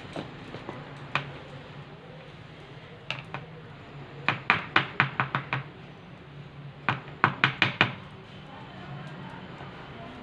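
Whisk beating cake batter in a bowl, clicking against the sides in two quick runs of about six or seven strokes each, with a few single taps before them, to work out the lumps.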